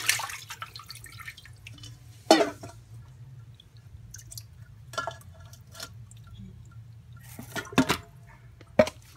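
Tap water running over elbow macaroni in a strainer stops about half a second in. Then water drips from the rinsed pasta, broken by a few sharp clinks and knocks, the loudest about two seconds in and two more near the end.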